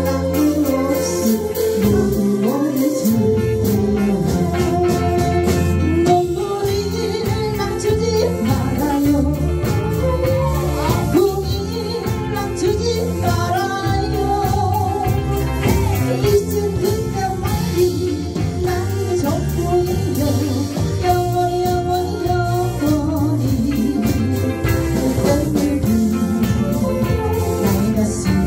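A woman singing a Korean trot song live, backed by a band of drums, electric guitar, bass guitar and keyboard.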